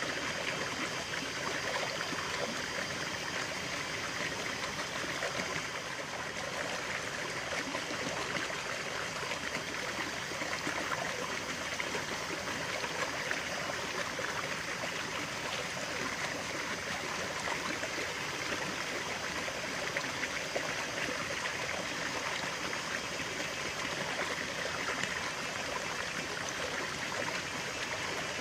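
Natural running water: a stream flowing and trickling steadily, a continuous burbling rush.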